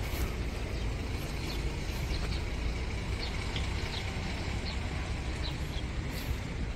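Steady outdoor city traffic rumble, with faint short high chirps scattered through it.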